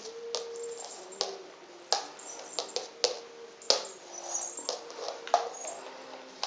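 Small bells on the tips of a felt jester's hat jingling in short, irregular tinkles as kittens paw and tug at it, with light knocks and rustles of the fabric.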